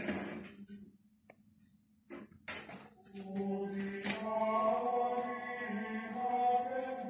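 Choir singing a slow chant in long held notes, coming in about three seconds in after a brief hush. A few short sharp sounds come before it, near the start.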